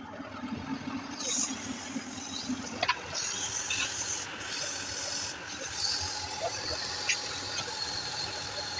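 Metal lathe spinning a starter motor armature while its commutator is worked. The commutator is turned with a cutting tool and polished by hand, giving an uneven high squealing hiss with a few sharp ticks. A low hum stops about three seconds in.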